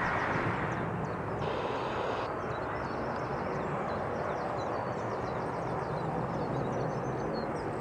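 Steady, even rumble of a jet airliner in flight heard from the ground, with faint high chirps of small birds over it.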